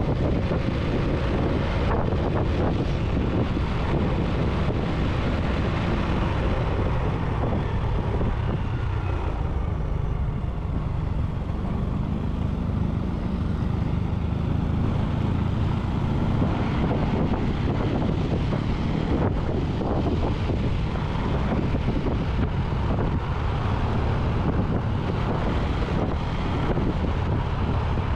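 Steady vehicle and road noise with wind rushing over the microphone while driving along a road.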